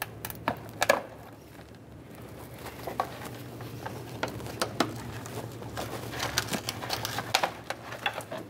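Plastic push clips being pried out with a trim tool and a plastic lower radiator plate being worked loose by hand: a scatter of sharp clicks and light plastic rattles, busiest near the start and again in the second half.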